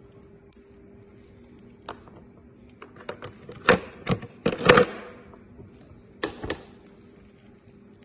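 Hard plastic clicks and clacks, some with a rustle of plastic wrapping, as the air cooler's top storage compartment and its bagged accessories are handled; the loudest cluster comes about four seconds in. A double clack comes a little after six seconds, as the plastic lid is shut. A faint steady hum runs underneath.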